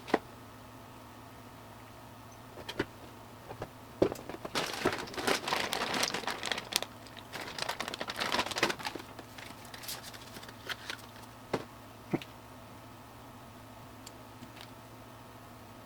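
Packaging handled by hand, crinkling and rustling for several seconds, with a few sharp clicks and knocks before and after; then only a faint steady hum.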